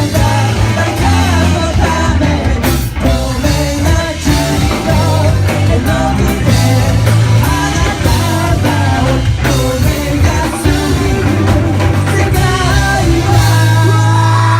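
Live rock band playing a song, with a singer over guitar, bass and drums. A long held low note sounds near the end.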